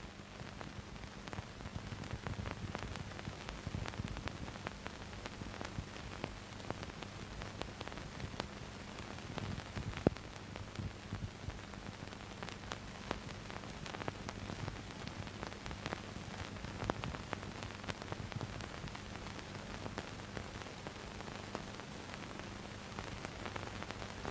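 Crackling hiss with many scattered clicks over a steady low hum, typical of the surface noise of an old optical film soundtrack; one sharp click about ten seconds in.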